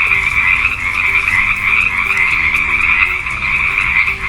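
Frogs calling in a steady, unbroken chorus.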